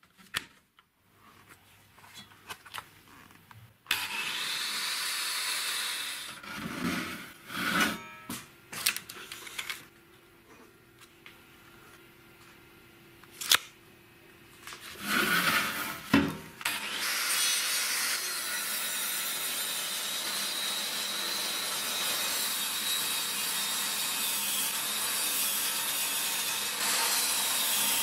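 Homemade angle-grinder-driven table saw: a short run of the motor about four seconds in and knocks as a wooden beam is set on the table, then from about 17 seconds on the saw running steadily as it rips the beam lengthwise.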